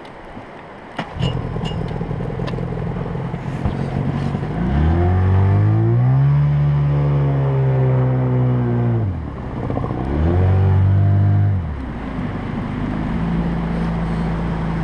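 Jet-drive outboard motor on a small river boat catches about a second in and settles to a steady idle. It is then revved up twice, held high for a few seconds the first time and briefly the second, each time dropping back to idle.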